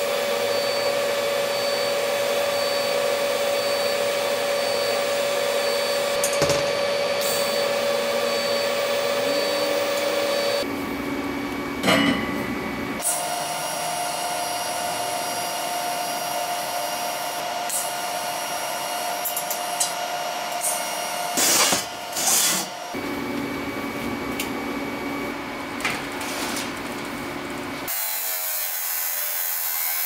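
TIG welding a steel tube frame: a steady electric arc buzz with a held tone, in several separate runs with a few short knocks between them. In the last two seconds an abrasive chop saw starts cutting steel bar.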